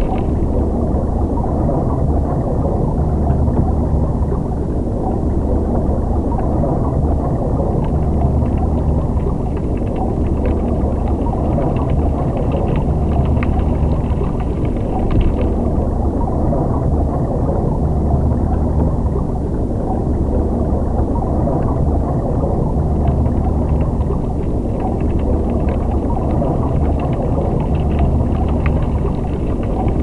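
Underwater ambience: a steady low rumble of water, with faint crackling that drops out about halfway through and returns a few seconds before the end.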